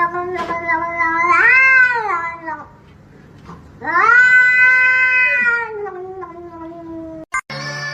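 Cat yowling in two long, drawn-out calls: the first swells upward in pitch and falls back about two seconds in, and the second starts about four seconds in and is held for around three seconds before sliding down.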